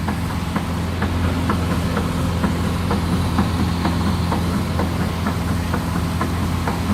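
Heavy diesel engine of a concrete truck running steadily, with light irregular clicks over it.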